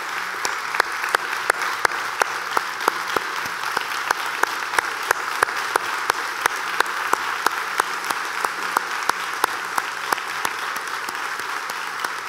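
A congregation applauding, with one person's claps standing out close and loud, about three a second, over the steady crowd applause.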